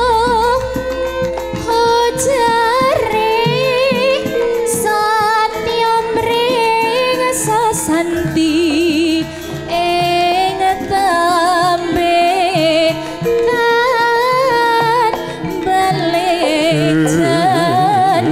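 A female sinden singing a Javanese song into a microphone, her voice wavering through ornamented turns and vibrato over gamelan accompaniment.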